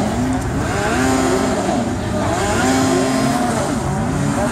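Several racing snowmobile engines revving up and down together, their pitches rising and falling as the sleds work around the snocross track.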